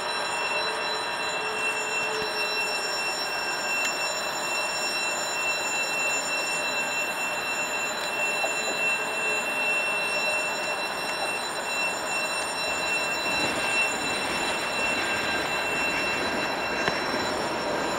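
Electric trains approaching a station platform: a steady running noise with several steady high whining tones. The rushing noise grows louder toward the end as a train draws near.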